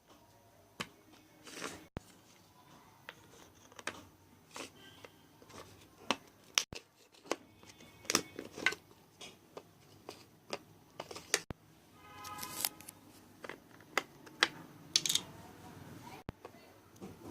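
Handling of a toy barrel of slime and its plastic packaging: scattered sharp clicks, crackles and crinkles, with a short squeak about twelve seconds in.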